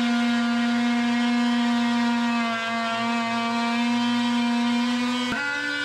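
DeWalt cordless oscillating multi-tool running with an old, worn-toothed blade, cutting through drywall with a steady buzzing tone. Near the end there is a click and the pitch steps up.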